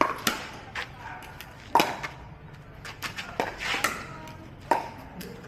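Pickleball rally: paddles hitting a plastic pickleball, a series of sharp, hollow pocks irregularly spaced about half a second to a second and a half apart, the loudest a little under two seconds in.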